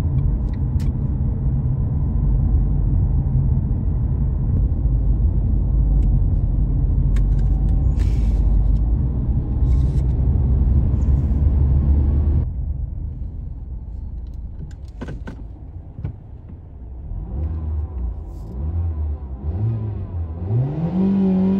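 Car engine heard from inside the cabin: a steady low rumble while driving, dropping to a quieter idle about twelve seconds in. The engine is then revved in a series of short blips on the accelerator pedal, each rising and falling in pitch, the last one highest near the end.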